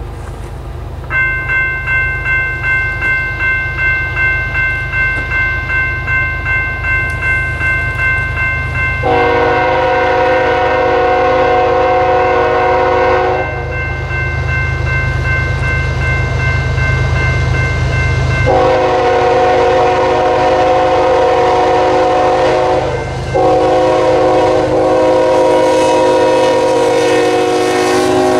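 A railroad grade-crossing bell rings at about two strokes a second. Then an approaching locomotive's multi-chime air horn blows three long blasts for the crossing, the last two almost run together, over the low rumble of the train.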